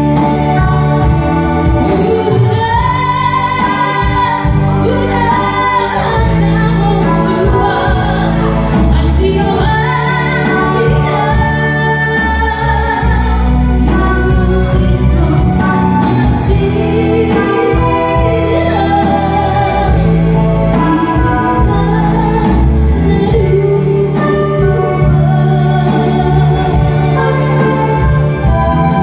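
A woman singing a Batak-language song over keyboard accompaniment.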